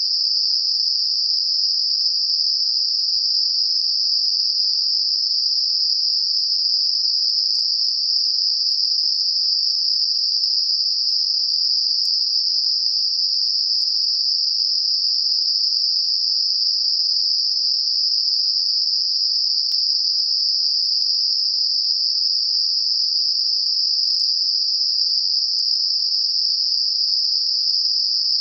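Computer-generated narrow-band noise centred on 5 kHz, a tinnitus masker: a steady, even high-pitched hiss with no rhythm, breaks or change in level.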